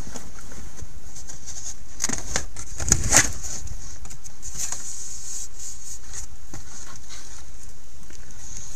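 Handling noise as a car's rubber trunk floor mat is peeled back and the wooden floor board beneath is lifted: rustling and light clicks, with a couple of sharper knocks about three seconds in, over a steady high hiss.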